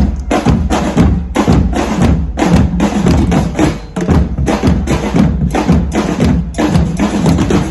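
A drumming group playing together: a loud, steady, driving rhythm of many drum strokes.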